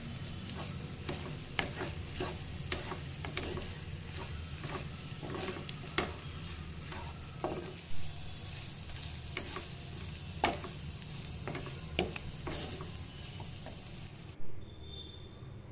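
Scrambled egg and fenugreek leaves sizzling in a frying pan while a wooden spatula stirs and scrapes through it, with scattered clicks of the spatula against the pan. Near the end the sizzle cuts off suddenly, followed by a single knock.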